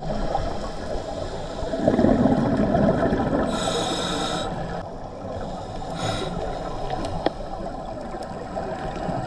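Scuba diver breathing through a regulator underwater: a gurgling rush of exhaled bubbles about two seconds in, then the hiss of an inhale through the regulator, and a shorter hiss a little later.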